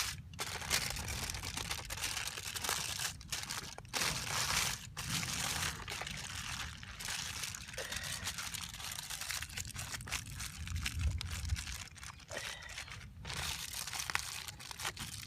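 Aluminium foil crinkling and crackling as it is handled and folded around fish, in irregular bursts with short pauses.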